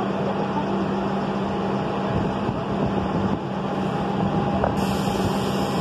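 Subway train running with steady noise and a constant low hum; a higher hiss comes in near the end.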